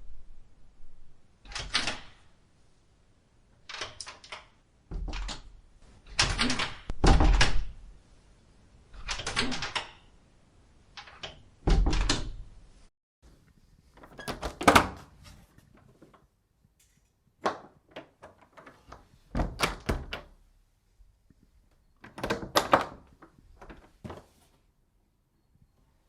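A door being opened and shut over and over: a series of sharp knocks and thuds, some in quick pairs, with short pauses between them.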